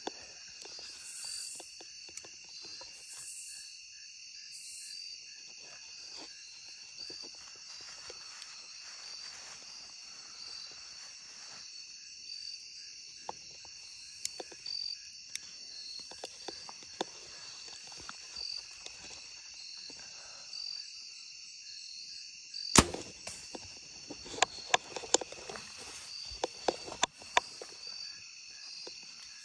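Evening insect chorus, crickets among them, trilling steadily at several pitches. About two-thirds through, a single sharp crack of a bow shot, followed by scattered clicks and rustling.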